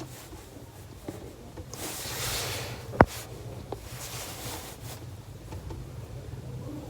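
Hands working a laptop: rustling, with one sharp click about three seconds in and a fainter click shortly after, as This PC is opened, over a steady low hum.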